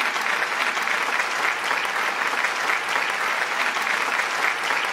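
A large theatre audience applauding steadily, many hands clapping at once.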